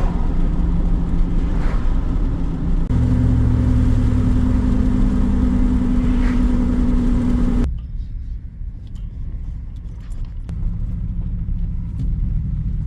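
GMC Sierra pickup truck on the move, its engine and road noise heard from inside the cab. About three seconds in the engine note grows stronger and steadier, and about eight seconds in the sound drops suddenly to a quieter low rumble.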